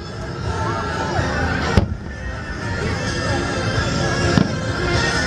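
Aerial fireworks shells bursting, two sharp bangs about two seconds and four and a half seconds in, over continuous background music and voices.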